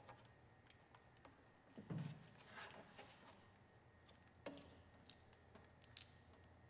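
Near silence, broken by a few faint handling noises as the windscreen is fastened to the fairing: a soft knock about two seconds in, a brief scrape, then several light clicks near the end.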